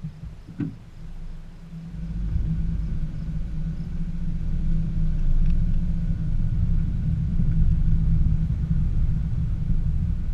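A 2014 Subaru Forester 2.5i driving along a rutted dirt trail: a steady low rumble of its flat-four engine and tyres, growing louder about two seconds in, with a single knock just under a second in.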